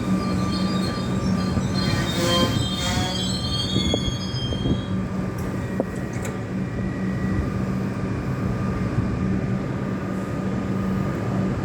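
Electric suburban metro train squealing high-pitched for the first few seconds as it brakes to a stop at the platform, then a steady electrical hum as it stands.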